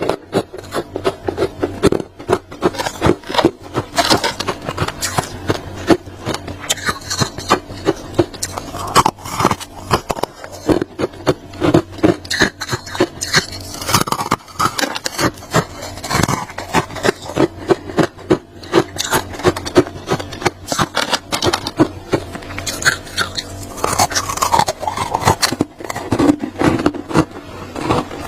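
Crunchy chunk of freezer frost, built up by a humidifier, being scraped, giving a quick, irregular run of crunching, scratching strokes.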